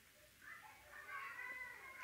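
A cat meowing: one drawn-out call that starts about half a second in and lasts about a second and a half.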